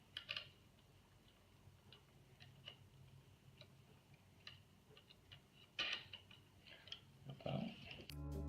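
Faint, scattered clicks and taps of small metal hardware being handled: a flat washer and nut going onto a 1/4-20 hex bolt, with a small cluster of clicks right at the start and another about six seconds in.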